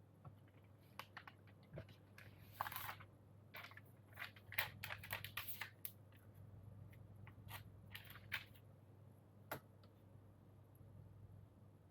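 Scattered small clicks and short crinkly rustles of keyboard parts being handled while the PCB's cable is connected to the USB-C connector board, busiest in the middle and ending with a single sharper click.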